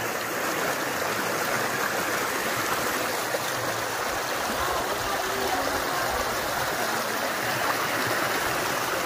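Steady rushing of flowing stream water in Nahal Prat.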